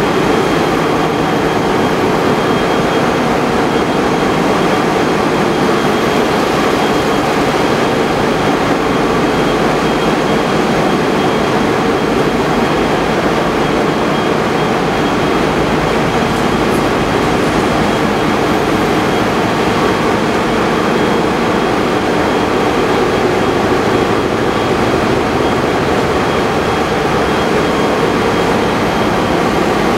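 Steady, loud drone of running diesel machinery in a ship's engine room, an unbroken mechanical din with a few steady tones through it.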